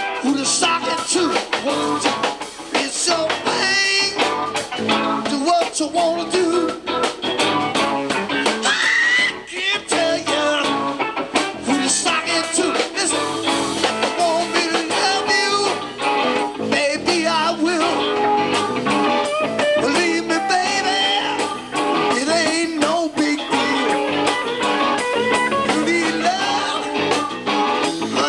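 Live blues-rock band playing: electric guitars, electric bass and drum kit, with a man singing.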